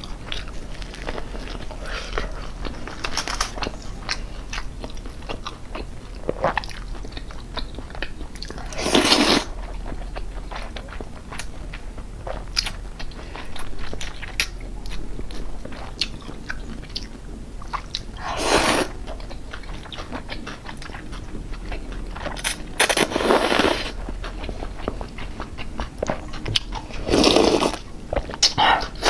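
Close-miked eating: steady chewing and crunching of fried food, broken by four loud slurps of cold noodles in broth spread through.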